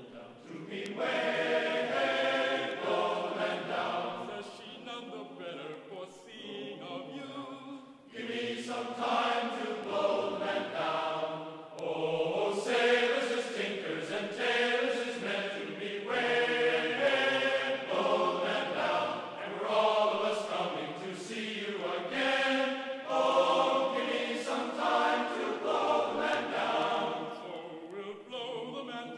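A choir singing together as a music soundtrack, dipping quieter for a few seconds before swelling again about eight seconds in.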